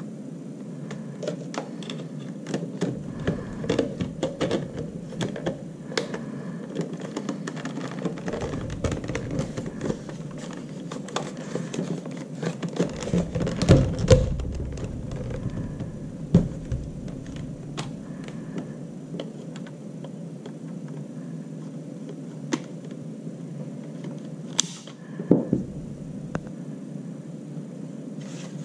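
Plastic parts of a Dyson V6 cordless vacuum being handled and separated with needle-nose pliers: a steady run of small clicks, rattles and knocks, with a few louder knocks around the middle and two more near the end.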